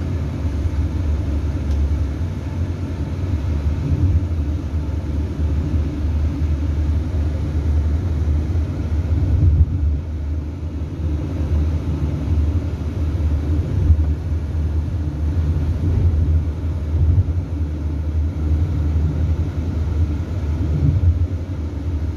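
Steady low rumble of road and engine noise inside the cabin of a car driving at highway speed.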